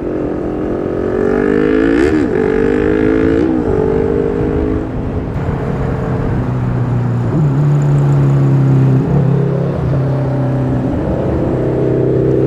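Vespa Primavera 150 scooter's single-cylinder engine running on the throttle, its pitch climbing slowly, mixed with other motorcycle engines close by that rise and fall briefly as they ride alongside.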